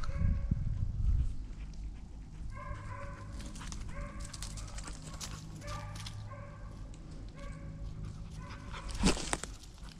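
Hunting hounds baying on a deer drive: clusters of short, repeated bays come several times. A single louder, sharp sound close by about nine seconds in is the loudest thing, and low rumbling noise fills the first second.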